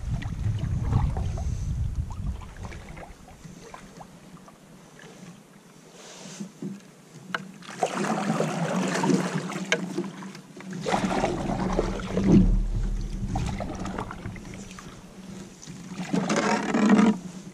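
Canoe paddling: splashy bouts of water sloshing and dripping from the paddle, mostly in the second half, with a few light knocks against the canoe. It is picked up close through a camera mounted on the hull, with some low rumble.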